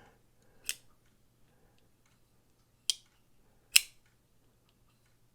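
Damned Designs Oni front flipper folding knife being flicked open and shut: three sharp metallic snaps, about a second in, near three seconds, and the loudest a little before four seconds.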